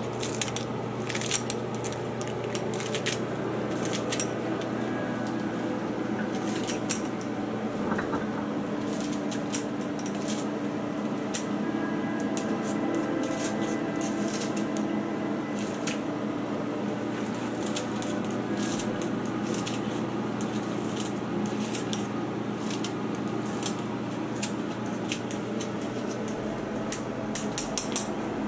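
Kitchen scissors snipping fresh herbs into a granite mortar, with short, sharp snips coming irregularly throughout. Under them runs a steady low hum.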